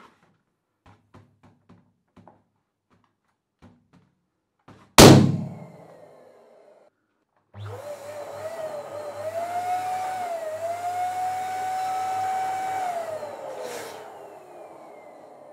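A clear latex confetti balloon is squeezed with small rubbing squeaks, then bursts with one loud pop about five seconds in. A couple of seconds later a dual-nozzle electric balloon pump starts and runs, inflating two latex balloons, its motor whine wavering, holding steady, then sliding down in pitch near the end.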